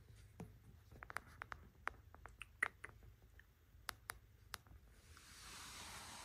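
Faint scattered scratches and small sharp clicks, like light handling or scraping, followed by a soft steady hiss that comes up about five seconds in.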